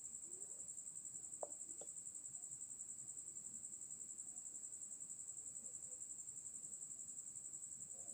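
Faint, steady high-pitched insect trill that pulses rapidly and evenly, as from a cricket. Two faint clicks of a metal spoon against the frying pan come about a second and a half in.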